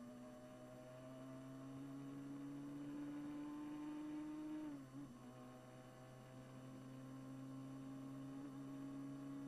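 Brabham BT21 one-litre Formula 3 racing engine pulling hard under full acceleration, heard faintly from the onboard camera. Its note rises steadily, drops sharply for an upshift about halfway through, then climbs again in the next gear.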